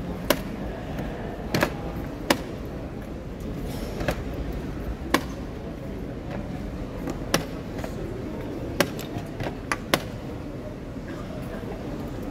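Plastic chess pieces being set down on the board and chess clock buttons being pressed during a blitz game: sharp, short clicks and taps at irregular intervals, two in quick succession near the end, over a steady background hall noise.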